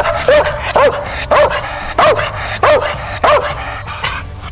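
A squirrel dog barking steadily in short, evenly paced barks, about two a second, each bark rising and falling in pitch: treed on a squirrel.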